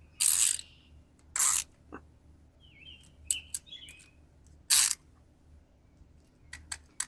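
Three short hissing bursts, the loudest sounds here, with a few light clicks and faint high chirps, like a small bird's, near the middle.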